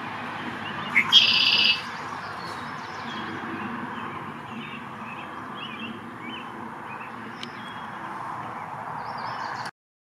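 Red-winged blackbird singing its conk-la-ree song once, about a second in: a short rising opening note followed by a loud buzzy trill. A few faint high chips follow over a steady background rush.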